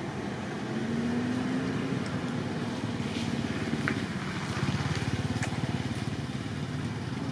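A motor vehicle's engine running close by with a steady low hum that rises a little in pitch and level about a second in. A few faint short high chirps sound over it.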